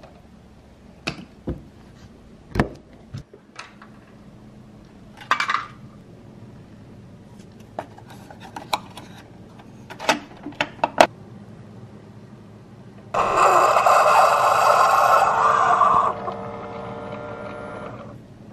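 Kitchen clatter: a plastic scoop knocking in a shaker cup, with a series of separate clicks and taps. About thirteen seconds in, a single-serve coffee maker starts brewing with a loud pump whir and hiss; about three seconds later it drops to a quieter steady hum.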